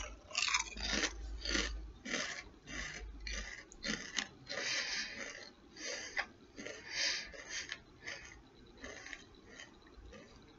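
A person crunching and chewing a mouthful of two stacked Pringles potato chips: a steady run of crisp crunches, a few a second, growing fainter and sparser after about eight seconds as the chips break down.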